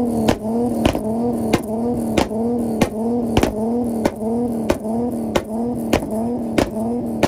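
A tuned car engine held on a two-step launch-control rev limiter: a sharp pop or bang a little under twice a second, the engine note dipping and climbing back between each.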